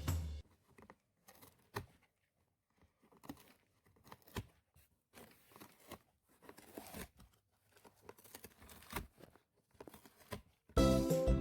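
A cat chewing and tearing at cardboard: irregular soft crunches and small rips with short pauses between. Music comes back in near the end.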